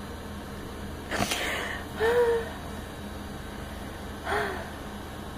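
A person's short breathy exhales and brief voiced sounds: a sharp breath about a second in, a short voiced 'mm'-like sound about two seconds in, and another smaller one near the end, over a low steady hum.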